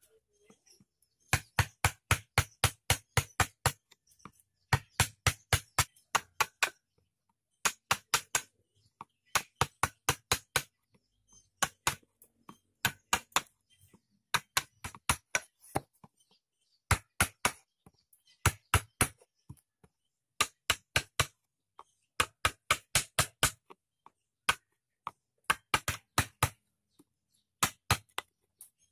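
Hatchet blade chopping into a seasoned hardwood cup blank, shaving off chips as the outside is faceted. Quick runs of several sharp chops at a time, with brief pauses between runs.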